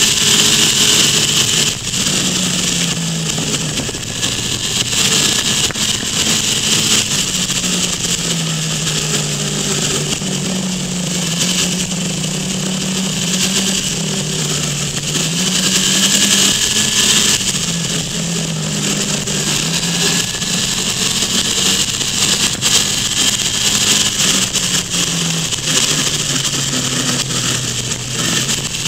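Motorcycle engine running under changing throttle, its pitch rising and falling again and again, with heavy wind noise rushing over the microphone at road speed.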